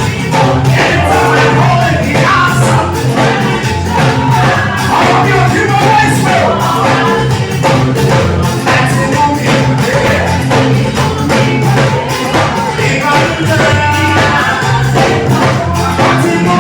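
Live band playing a song, with singing, a steady bass line and a regular beat with tambourine.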